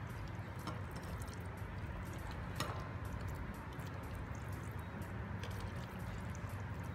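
A spatula scraping thick, sticky stir-fried vegetarian char siu filling out of a stainless steel pot into a glass bowl: soft wet squelches and light taps, with one sharper clack about two and a half seconds in. A steady low hum runs underneath.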